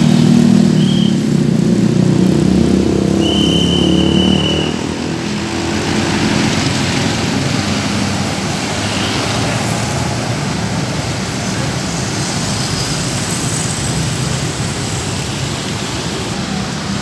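Tour bus engine passing close, loudest for the first four seconds or so, with two short high steady tones about a second and three and a half seconds in; after that, steady road traffic noise.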